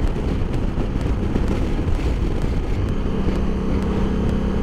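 Honda CRF1000L Africa Twin's parallel-twin engine running at steady cruising speed, mixed with wind rushing over the microphone; a steady engine tone comes through more clearly about three seconds in.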